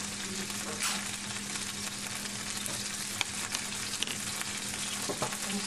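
Shrimp sizzling in olive oil in a frying pan: a steady frying hiss with a few light clicks, over a steady low hum.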